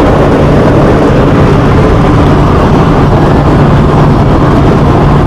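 Propeller aircraft engine running steadily, heard from inside the cabin: a loud, even drone with a steady low hum.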